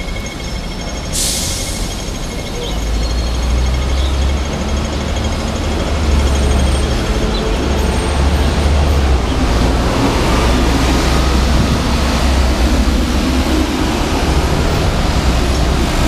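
City street traffic noise, with a heavy low rumble building from about three seconds in. A pedestrian crossing signal ticks rapidly over the first few seconds, and a brief hiss comes about a second in.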